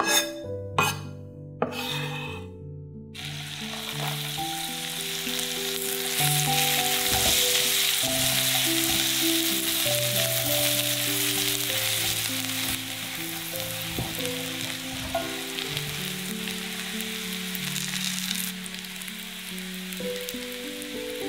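Food sizzling in a hot frying pan, the hiss starting suddenly about three seconds in and holding steady, after a few knocks of a utensil or pan at the start.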